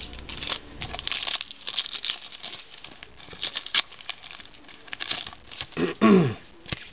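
Baseball cards being handled and flipped through by hand: a run of light, papery clicks and rustles.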